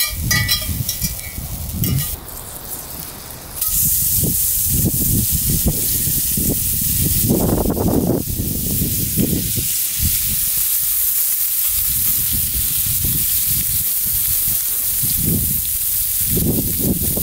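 Venison backstrap steaks sizzling in a hot cast iron skillet over a campfire, a loud steady hiss that starts suddenly about four seconds in as the meat goes into the pan. Before that, a few metal clinks of a fork against the skillet.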